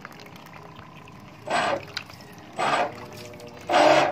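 An RC model boat's motor run in three short bursts about a second apart, its propeller churning the water in a plastic tub and splashing water.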